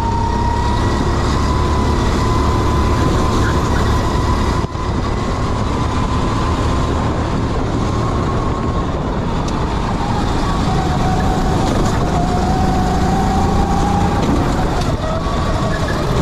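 Kart engine running hard at speed, with a heavy low rumble under it. Its pitch climbs slowly, drops around ten seconds in as the kart slows, and picks back up about fifteen seconds in.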